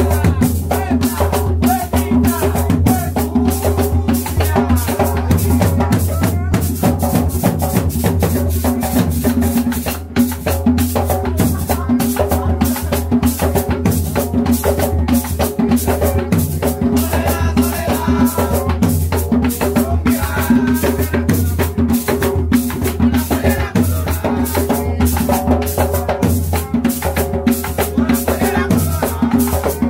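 Hand drums and maracas playing a steady dance rhythm.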